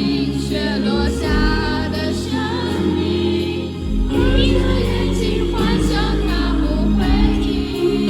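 Live ballad performance: a high, light male voice sings with vibrato over sustained instrumental accompaniment.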